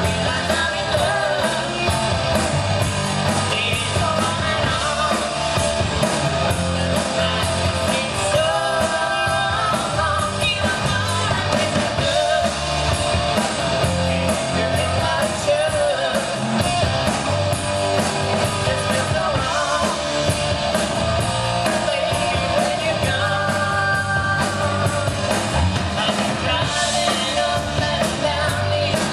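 Live rock band playing through a PA: a male singer over electric bass guitar and drums, with a steady beat.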